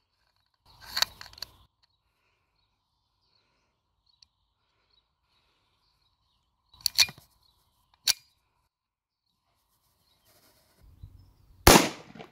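Colt Government 1911 A1 blank pistol in 9mm P.A.K. being loaded and fired. The magazine clicks home about a second in, the slide clacks twice around seven and eight seconds, and one sharp blank shot goes off near the end, the loudest sound.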